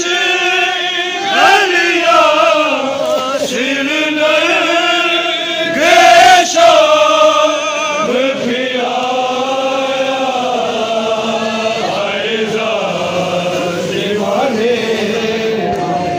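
A crowd of men chanting an old Shia noha (mourning lament) together, voices only with no instruments, the held lines rising and falling; the singing swells louder about six seconds in.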